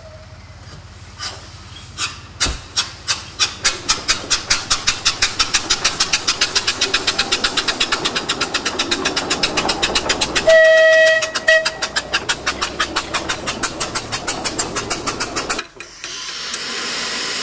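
Compressed-air narrow-gauge locomotive pulling away, its exhaust beats starting slow and quickening to about four or five a second. About two-thirds of the way through a whistle sounds, a long blast then a short one. Near the end the beats stop abruptly and a steady hiss of air takes over.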